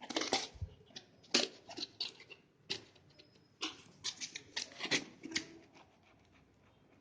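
Knife cutting open a cling-wrapped cardboard package: irregular scraping and crackling strokes that stop about five and a half seconds in.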